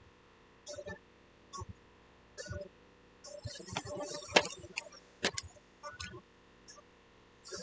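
Marker bowling pins on a string pinsetter being lifted to reset, clicking and knocking against one another. A scatter of light clicks builds into a denser clatter in the middle, with the sharpest knocks about four and five seconds in.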